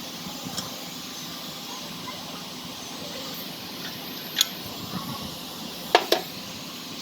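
Brake pads and hand tools clinking against the Land Cruiser's four-piston front brake caliper as the pads are worked out, with a few sharp clicks, the loudest a quick pair near the end, over a steady background hiss.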